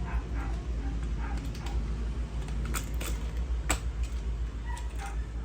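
Parts of a die-cast Transformers Scavenger toy being forced together by hand: creaking and scraping, then a few sharp clicks, over a steady low hum.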